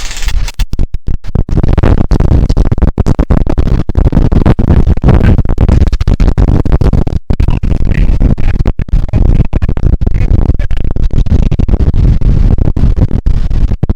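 Heavy wind buffeting the action camera's microphone: a loud, rough rumble with many brief dropouts.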